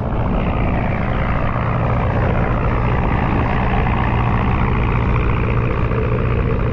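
Inboard diesel engine of a wooden fishing boat running steadily under way: a constant low drone over a steady rushing hiss.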